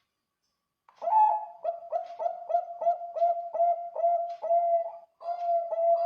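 Perkutut Bangkok zebra dove cooing: after about a second of silence, a fast run of short, clear coos, about three a second, with a brief break near the end.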